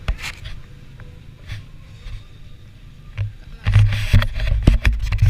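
Handling noise on a camera microphone: low rumbling and scattered knocks and rubs as the camera is swung about and fingered, growing much heavier in the last second and a half.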